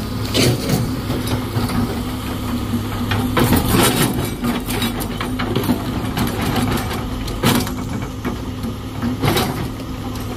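Dump truck's diesel engine running with a steady low hum, and a few sharp knocks or clunks scattered through.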